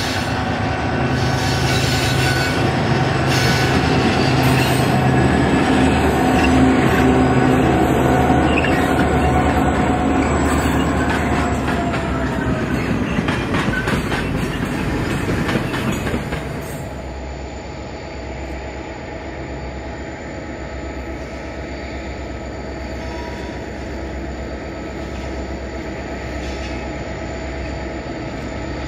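81 class diesel-electric freight locomotives, EMD two-stroke engines, passing loudly with a steady engine drone over steel wheels on rail. About sixteen seconds in the sound drops sharply to a quieter, steady low engine drone as another train led by 81 class locomotives comes slowly up the line.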